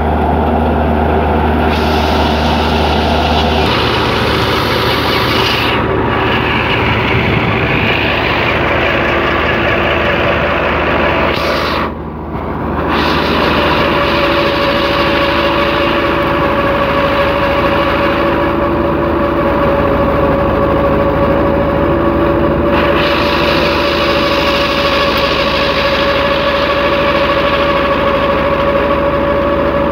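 Wheat thresher running, driven by a Belarus tractor's diesel engine, with the thresher's drum and the engine making a steady, loud mechanical din as straw is fed in. A steady whine runs through it, and the sound dips briefly about twelve seconds in.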